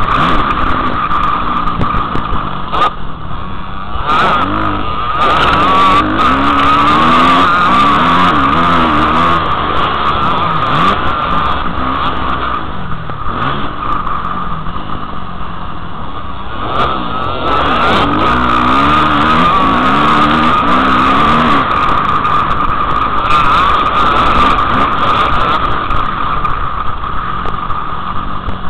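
Motocross dirt bike engine revving up and down over and over as it is ridden hard around a track, heard close through a helmet camera, with a few brief dips when the throttle is eased.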